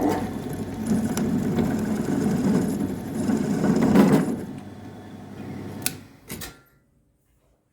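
A workshop power tool's motor running steadily, then winding down about four seconds in, with two sharp clicks before it falls quiet.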